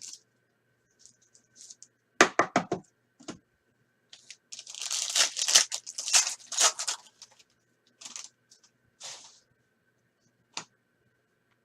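A trading-card pack wrapper being torn open by hand: a few sharp clicks from handling, then a long ripping tear, followed by lighter rustling of the wrapper and cards.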